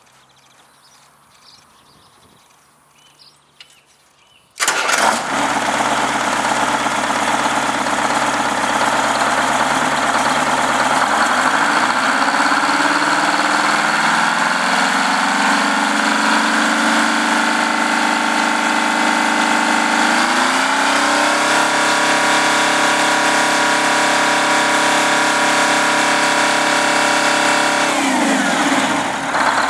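Detroit Diesel 8V71N two-stroke V8 diesel starting abruptly about four and a half seconds in, then running loud. Its revs fall and settle to a steady speed, step up a little past the middle, and dip and pick back up near the end.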